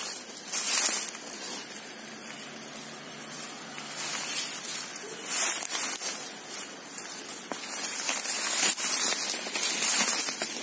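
Footsteps crunching and rustling through dry bamboo leaf litter and undergrowth, in uneven bursts of crackling.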